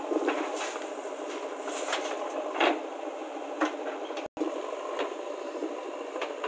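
JCB backhoe loader digging dry soil: a steady machine noise with scattered knocks and scrapes from the bucket working the earth. The sound cuts out for an instant about four seconds in.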